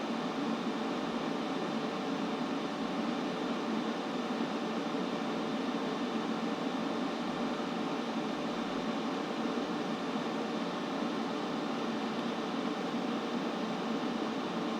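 Steady white noise for sleep: an even, unchanging hiss, fullest in the lower-middle range, with a few faint steady tones running through it.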